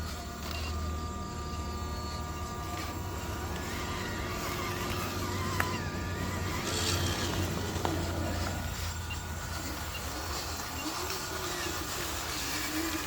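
Small electric motors and gearboxes of radio-controlled trucks running with a steady whine, with a sharp click about halfway through.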